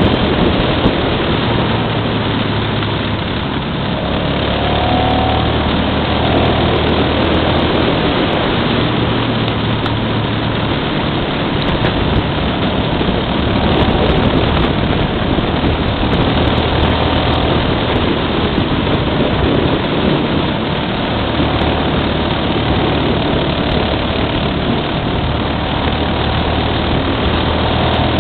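Motorcycle engine running at road speed under heavy wind rush on the microphone, the engine note stepping up and down in pitch now and then through the bends.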